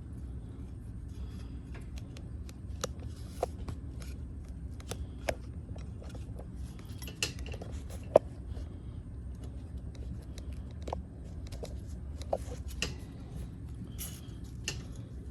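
Scattered metallic clicks and clinks from a wrist-wrench training handle and its attachment hardware as it is worked, with one sharper knock about eight seconds in, over a steady low hum.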